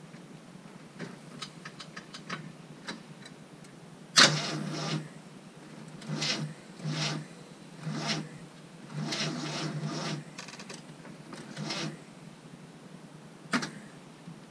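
Starter of a 1981 Jeep CJ7 cranking the engine sluggishly in about seven short attempts, the first and loudest about four seconds in, without the engine catching: the battery is too weak to turn it over. A few faint ticks come before the first attempt.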